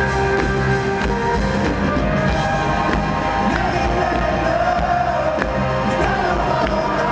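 Live rock band playing in a large arena: steady drum hits under a full band, with a sung melody coming in about halfway through.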